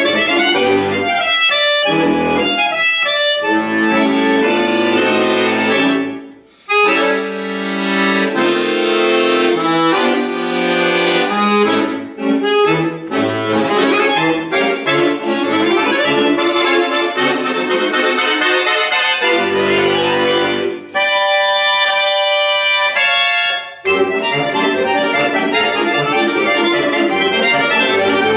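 Solo chromatic button accordion playing fast, dense chords and runs, with a brief pause about six seconds in and short breaks later on.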